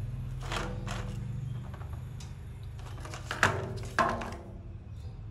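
Plastic toy dump truck knocking and tumbling against steel diamond-plate stair treads: a few clunks, the two loudest close together about three and a half and four seconds in. A steady low hum runs underneath.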